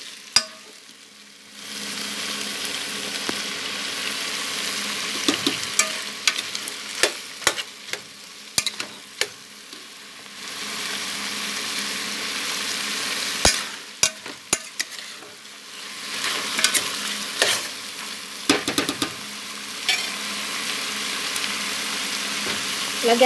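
Chicken pieces sizzling in an aluminium pot while a metal spoon stirs them, with scattered clinks of the spoon against the pot. The sizzle starts about a second and a half in and briefly drops away twice.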